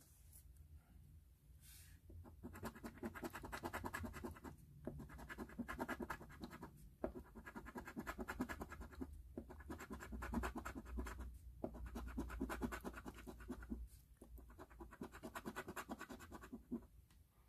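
The coating of a scratch-off lottery ticket being scratched off: quick scraping strokes in about six runs of a couple of seconds each, with short pauses between them.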